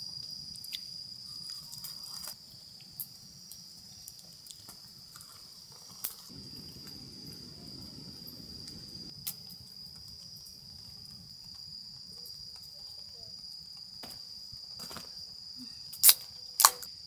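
Crickets chirring steadily in one continuous high trill, with faint small clicks of handling. Two sharp clicks about half a second apart near the end are the loudest sounds.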